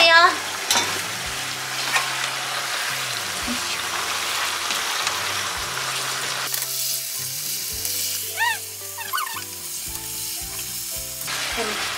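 Beef and shimeji mushrooms sizzling in a frying pan on high heat, stirred with a wooden spatula, over quiet background music.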